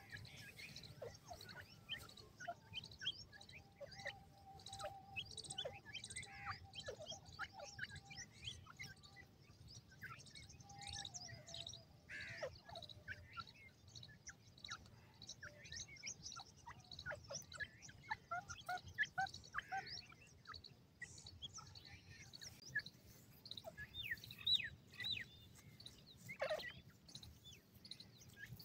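Young grey francolins chirping as they forage: a dense, constant scatter of short, high chirps and peeps from several birds, with one louder call near the end.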